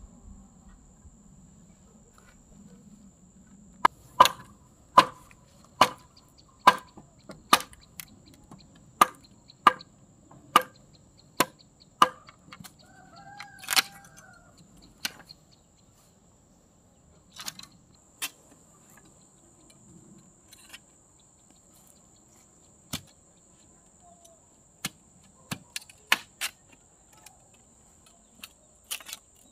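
A run of about ten sharp chopping strikes, a little under one a second, then scattered single knocks, with a chicken clucking briefly about halfway through.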